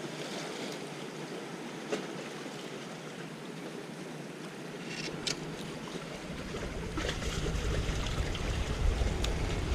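Sea water washing and trickling among the rocks of a breakwater, with a few faint clicks. Wind starts buffeting the microphone about two-thirds of the way in, adding a low rumble.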